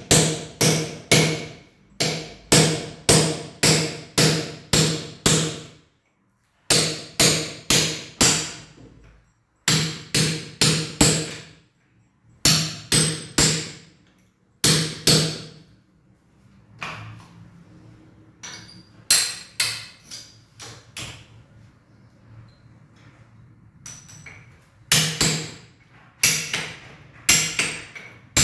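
Hammer blows struck in quick runs of several strikes, about two to three a second, with short pauses between runs. Each blow has a brief ringing note, and the strikes are softer around the middle.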